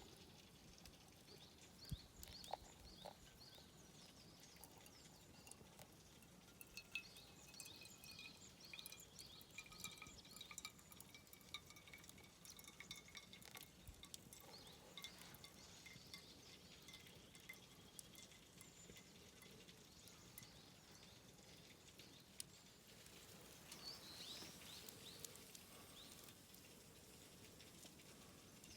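Faint birdsong outdoors: several small birds chirping and whistling, with a few drawn-out phrases gliding slowly down in pitch about a quarter and a third of the way in. Small sharp crackles and clicks are scattered throughout.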